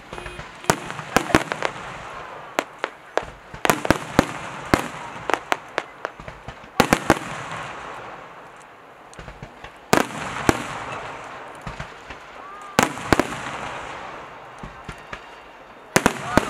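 Aerial fireworks display: sharp bangs of shells bursting overhead, coming in irregular clusters every second or few, with a haze of crackling between the bursts.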